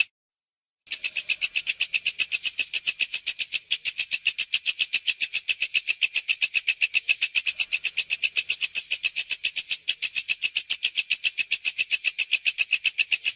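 Walang kecek, a bush cricket (katydid), calling: a steady train of rapid, even, high-pitched pulses. The call starts after a brief silence about a second in.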